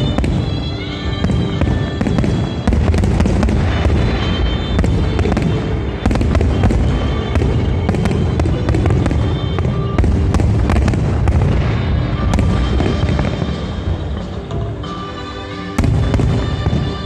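Fireworks show: a dense run of shell bursts and crackling, with music playing throughout. The bursts ease a little and then come back with a loud new burst near the end.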